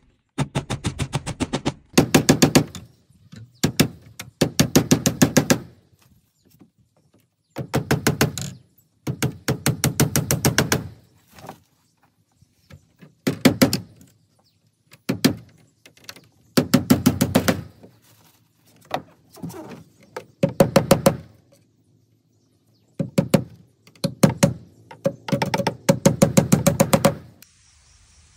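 Back of a heavy knife blade hammering small nails into bamboo slats, in quick runs of rapid taps with short pauses between runs, the hollow bamboo ringing under each blow.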